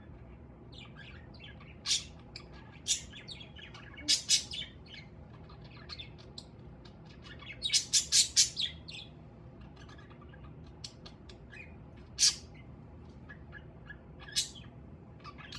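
Pet budgerigar chattering in short high chirps, broken by louder sharp calls, including a quick run of four or five of them about halfway through.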